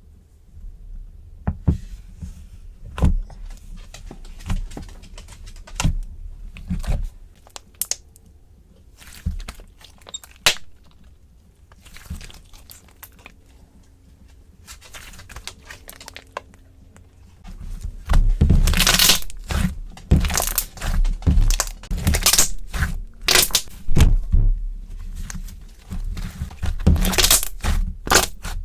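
White glue jelly slime being pressed and squeezed by hand, giving scattered pops at first, then a dense, louder run of popping and crackling from about two-thirds of the way in.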